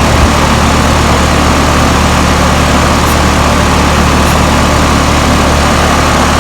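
Carrier 2.5-ton central air conditioner's outdoor condensing unit running: steady compressor hum and condenser-fan noise, with a constant higher tone on top.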